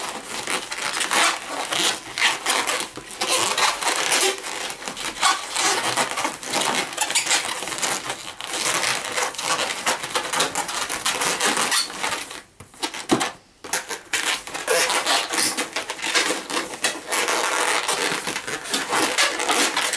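Long inflated latex modelling balloon being twisted and handled close to the microphone: continuous squeaking and rubbing of the rubber, with a brief lull about twelve seconds in.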